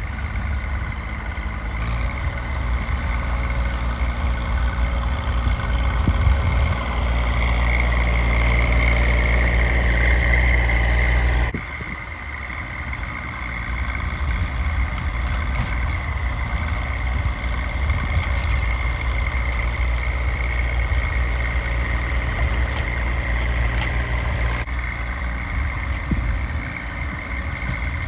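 Tractor engine running steadily while clearing snow, with a louder stretch before it changes abruptly about halfway through.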